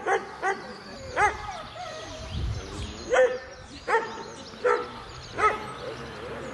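A dog barking: about seven short, high barks, three quickly at first and then four more after a pause of nearly two seconds.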